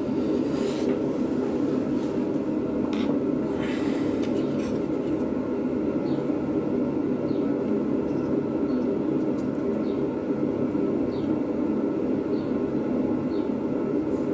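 A steady low rumbling drone with no rhythm, with a few sharp clicks and knocks in the first five seconds.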